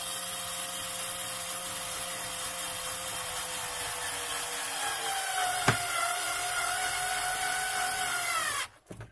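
Electric screwdriver driving a screw into the underside of a melamine-covered particle-board shelf: a steady motor whine whose pitch shifts a little about halfway through, with one sharp click a little past halfway. It winds down and stops near the end.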